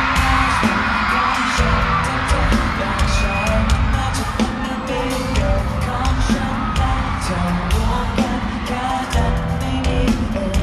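Thai pop song performed live through the concert sound system: a steady drum beat under the group's singing.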